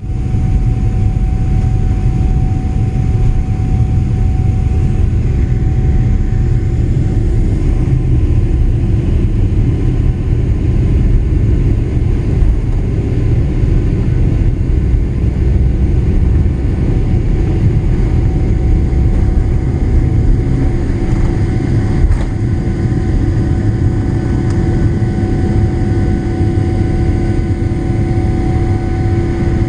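Boeing 777 airliner's jet engines and airframe during takeoff: a loud, steady low rumble with a constant whine running through it, joined by fainter higher tones about two-thirds of the way through.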